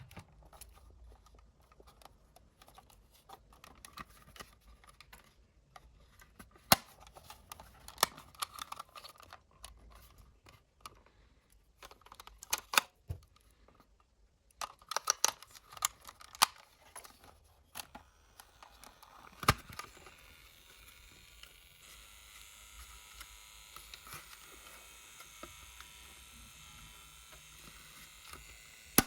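Sharp clicks and taps of small plastic and metal parts being handled, irregular and in clusters. About twenty seconds in, the clicks give way to a faint steady whir.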